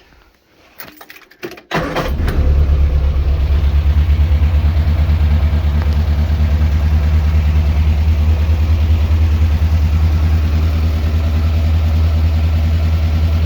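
Morris Minor Traveller's four-cylinder engine started after a few clicks, catching about two seconds in and then running steadily at idle. It is still misfiring on cylinder 3 with a different HT lead fitted, so the fault lies elsewhere than the lead.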